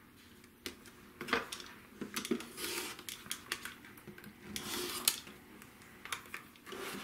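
Rotary cutter blade rolling through cotton fabric along the edge of a plastic Tri-Rec ruler on a cutting mat: two cutting strokes about two seconds apart, with clicks and taps from the ruler being set down and shifted.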